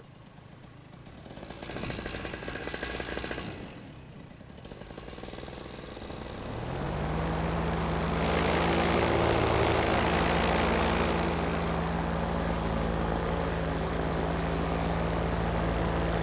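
Paramotor engine and propeller, quiet at first, then throttling up with a rising pitch about six and a half seconds in and running at a steady drone.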